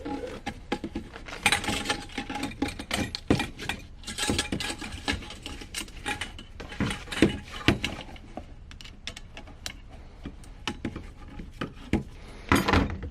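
Diesel heater exhaust muffler being screwed onto its metal exhaust pipe by hand: irregular clicks, knocks and scrapes of the parts being handled and threaded together, with a louder cluster of clicks near the end.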